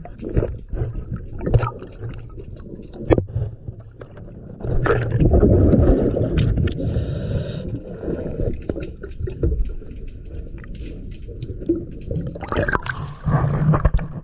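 A scuba diver's exhaled bubbles gurgle and rumble through the regulator underwater. The loudest bubbling comes about five seconds in and again near the end, with scattered sharp clicks and knocks between.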